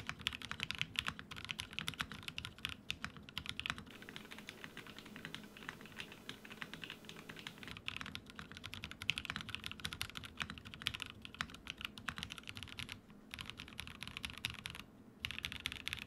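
Fast typing on a 65% custom mechanical keyboard (Tofu65 2.0 kit, top-mounted aluminum plate, plate foam only, NK Cream linear switches), picked up by a dynamic microphone. It gives a dense run of bright, sharp keystrokes with a couple of brief pauses near the end. The builder calls the sound pretty bad, not deep or thocky.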